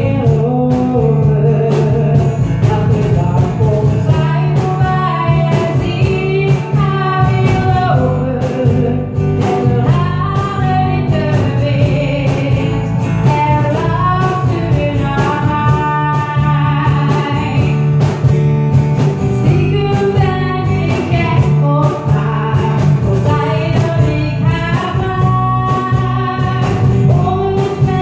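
A woman singing a Dutch-language pop song into a microphone, accompanied by a guitar over a steady beat.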